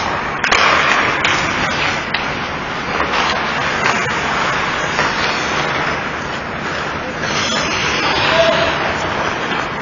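Ice hockey play at the rink: a steady scrape and hiss of skates on the ice, broken by sharp clacks of sticks and puck, with players' voices calling out.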